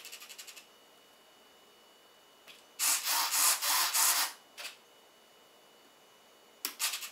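Servos in a Freewing 90mm F-16 foam RC jet driving the flaperons: a short burst of rapid clicks, then about a second and a half of loud buzzing whir from the middle on, then another short burst of clicks near the end.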